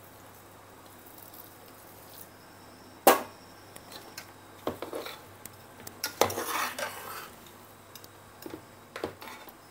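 Steel spoon stirring and scraping hot-water rice-flour dough in an aluminium pressure-cooker pot, with scattered metal clinks against the pot. A single loud clank about three seconds in, then a longer stretch of scraping about six seconds in.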